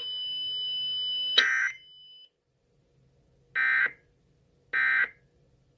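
Emergency Alert System end-of-message data bursts: short, buzzy, identical digital squawks about a second apart that mark the end of the alert broadcast. Before them a steady high whine grows louder and breaks off with a short burst about a second and a half in.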